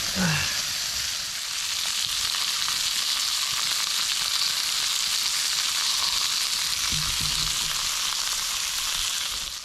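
Food sizzling and frying hot over a campfire, a steady crackling hiss that drops away near the end.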